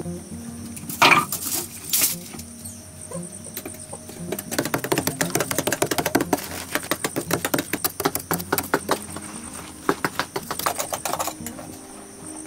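Rapid, irregular light tapping and clicking, several strikes a second, from about four seconds in to about a second before the end. Two louder knocks come near the start, and soft background music runs under it.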